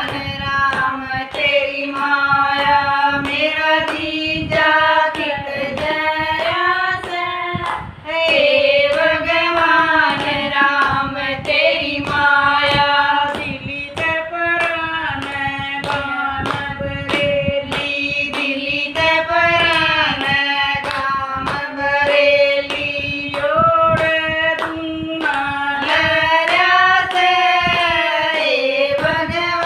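Women's voices singing a Haryanvi jakdi folk song together with no instruments, keeping time with steady rhythmic hand claps.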